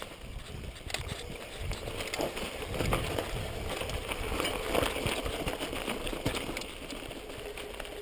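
Mountain bike riding over a dirt trail: steady tyre rumble with frequent rattles and knocks from the bike over bumps, loudest about halfway through.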